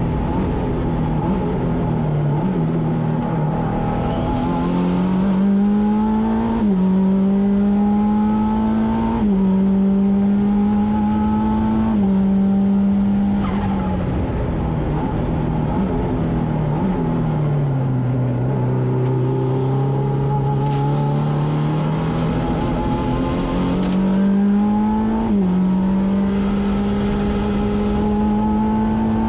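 Saker RAPX race car's engine heard from inside the cockpit under hard acceleration. The note climbs and drops sharply at each upshift, falls in steps to a low note through downshifts about halfway, then climbs back up through the gears near the end.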